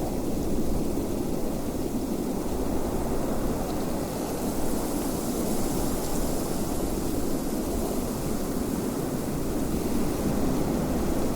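Wind blowing steadily: a continuous rushing noise with a hiss that grows a little stronger midway.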